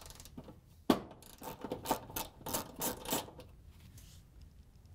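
3/8-inch socket ratchet clicking as it backs a nut off a range terminal block stud: one sharp click about a second in, then a run of ratchet clicks at about four a second that stops a little past three seconds in.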